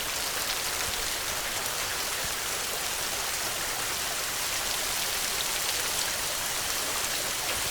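Heavy rain falling, a steady even hiss of drops with faint scattered ticks.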